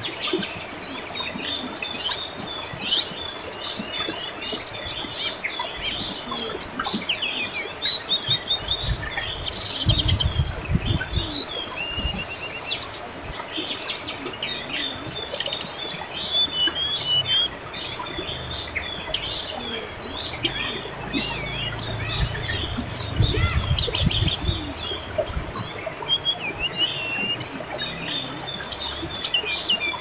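Many small birds chirping and trilling continuously, overlapping one another, over the steady babble of a river. A brief low rumble comes about ten seconds in and again a little after twenty seconds.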